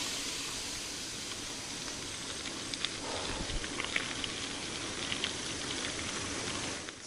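Mountain bike riding along a trail: a steady rushing hiss of wind and tyre noise, with scattered light clicks and rattles from about three seconds in.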